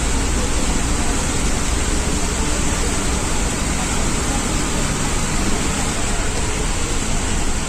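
Ashok Leyland Viking BS-3 bus's diesel engine running steadily on the move, a low drone under a loud, even hiss of heavy rain.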